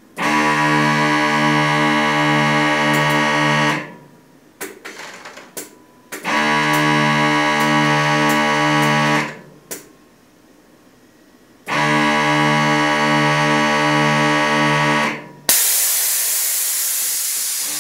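Three long, loud held chords of several tones, each about three and a half seconds, with a fast pulsing beat and short gaps between. About three-quarters of the way in a sudden loud hiss of escaping air starts and tapers off, as the truck's air suspension bags dump and the truck drops.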